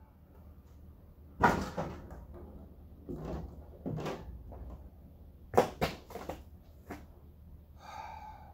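Wooden boards being handled and set down: a series of hollow knocks and clacks, the loudest about a second and a half in and a quick double knock past the middle. A brief high squeak near the end.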